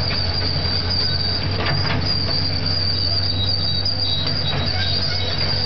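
Caterpillar 330L tracked excavator working, its diesel engine running steadily under a continuous high-pitched squeal, with a few brief louder squeaks; typical of the steel tracks and undercarriage as the machine travels.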